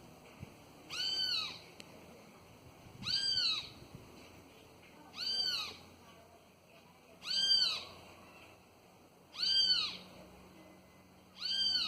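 A toucan calling: six short calls, each rising then falling in pitch, repeated evenly about every two seconds.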